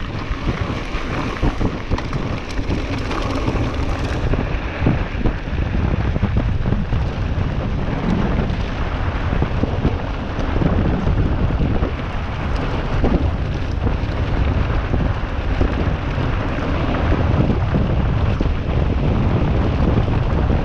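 Wind buffeting the action camera's microphone over the steady crunch and rumble of mountain-bike tyres rolling fast on a gravel track, with the bike rattling over small bumps.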